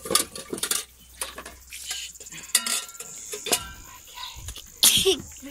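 Borzoi puppies licking and eating wet food from a stainless steel bowl, with scattered clinks and knocks of metal bowls. A short loud burst comes about five seconds in.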